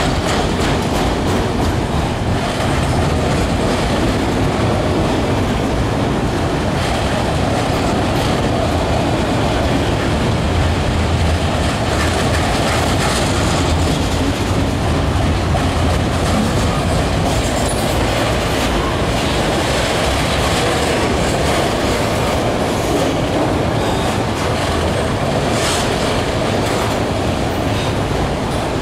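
Freight train of autorack cars rolling past close by: the steady, even noise of steel wheels running on the rails, with scattered clicks.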